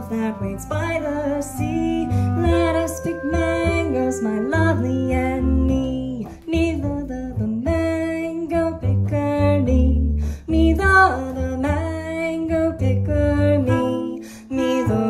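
Small jazz group playing: a woman sings wordless scat lines over a plucked double bass, with clarinet.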